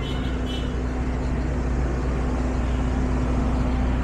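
Steady low rumble of city traffic, with a constant engine-like hum.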